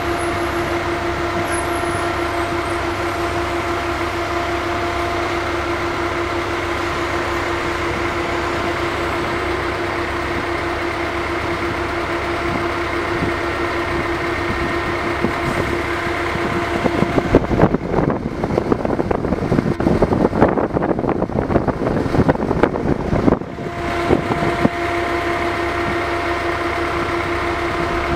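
A steady machine hum with one constant low pitch and its overtones over a rushing noise. From about two-thirds of the way in, irregular gusty buffeting like wind on the microphone covers it for several seconds, then the hum returns.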